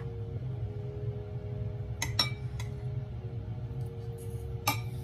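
Knife and fork clinking against a plate while cutting into cooked pigeon: a few sharp clinks about two seconds in and another near the end, over a steady low hum.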